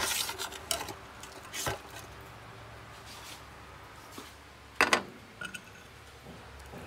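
Metal tongs clinking and scraping against a stainless steel roasting pan as a roasted pork rib is pulled free of the rack, with a few sharp clinks in the first two seconds. A louder double clack comes about five seconds in as the rib and tongs are set down on a ceramic plate.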